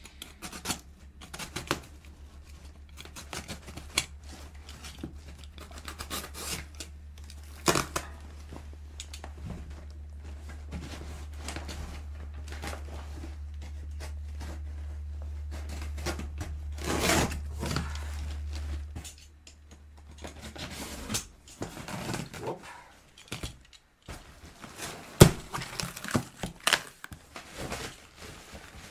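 Knife cutting open a parcel's packaging: irregular scraping, tearing and knocking, with one loud knock about 25 seconds in. A low steady hum runs underneath and stops about 20 seconds in.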